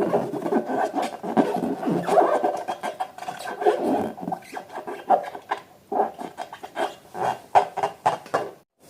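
Balloons and slime being squeezed and handled, giving an irregular run of rubbery squeaks, squelches and rubbing noises, cut off briefly near the end.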